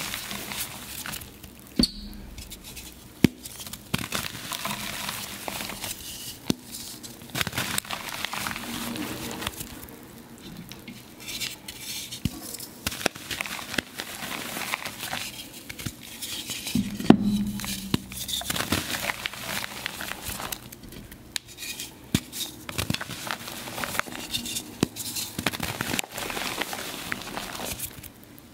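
Water-soaked reformed gym chalk being crushed: irregular crumbly crackling and crunching, broken by many sharp clicks and a few louder snaps.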